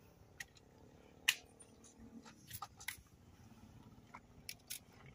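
Quiet background with several faint, short, sharp clicks scattered through it, the clearest about a second in.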